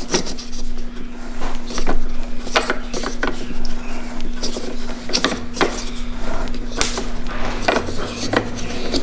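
A screwdriver tightens the bolt of a roof-crossbar foot, with a series of sharp, irregularly spaced clicks from the torque-limiting tool. The click is the sign that the bolt has reached its set tightness and the crossbar foot is secured.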